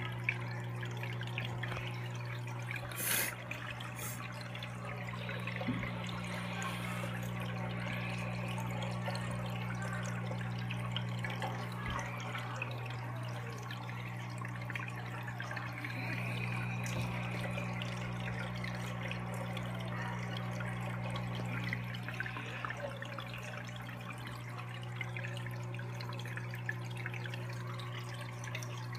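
Aquarium filter running: water trickles and drips into the tank over a steady electric hum, with a single knock about three seconds in.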